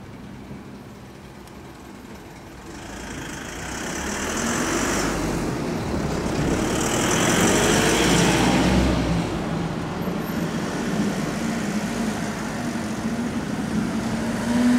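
A vehicle passing close by, growing louder over several seconds and loudest about halfway through, then running on steadily until it cuts off.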